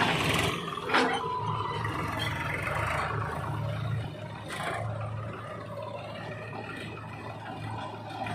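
Diesel engine of a JCB 3DX backhoe loader running steadily as the machine digs and loads earth. There is a sharp clank about a second in and a few fainter knocks and scrapes later.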